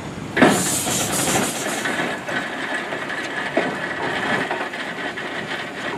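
Small vertical-boiler steam traction engine letting off steam: a sudden loud rush of hiss about half a second in that eases after about a second into a steady hiss as the engine moves along.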